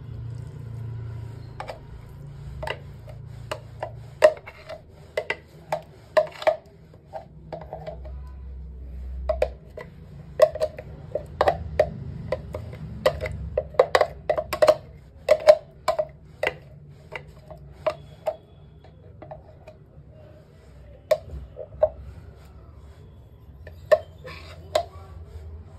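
A metal spoon scraping and knocking against the inside of a plastic chopper container, scooping a crushed mixture out onto a plate: irregular clicks and taps, a few a second.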